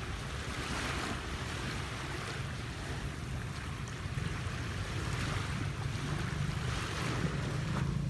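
Small waves washing onto a sandy shore, swelling and fading every couple of seconds, over a steady low rumble of wind on the microphone.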